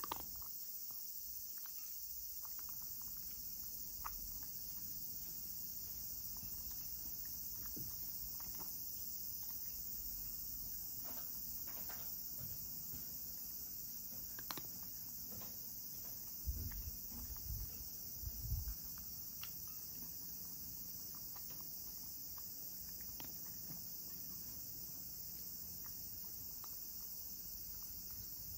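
Cat eating dry kibble from a ceramic bowl: scattered small crunches and clicks, with a few low knocks a little past halfway, over a steady high hiss.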